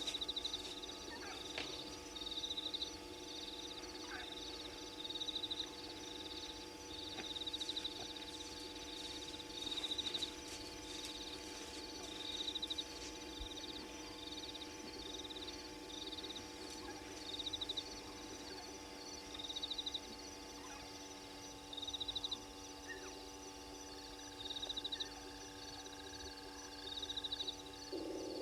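Night chorus of frogs and insects at a waterhole: short trains of rapid, high-pitched pulsing calls repeat every second or two over a steady, continuous drone.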